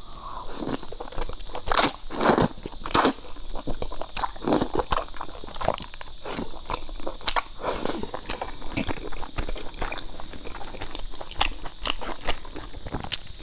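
Close-up mouth sounds of eating wide, slippery noodles in chili oil: chewing with wet smacks and clicks, and sucking the noodles in. The loudest bursts come about two to three seconds in.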